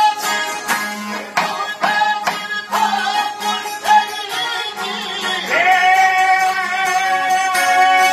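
Albanian folk music on plucked long-necked lutes such as the çifteli, strummed in quick repeated strokes. About five and a half seconds in, a man's voice comes in on one long held high note over the strings.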